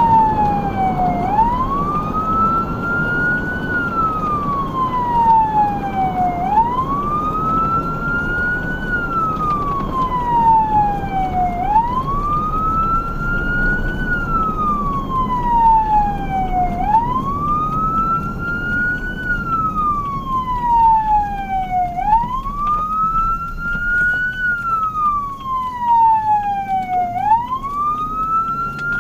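Emergency vehicle siren in a slow wail, its pitch rising and falling over and over, about once every five seconds, over a steady rumble of engine and road noise.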